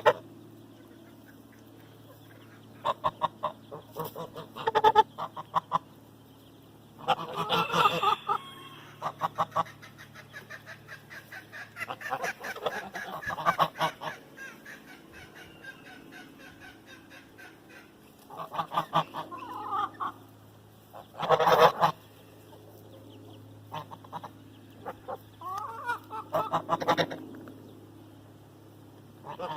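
Sebastopol geese honking in repeated bouts, a few seconds apart, over a faint steady low hum.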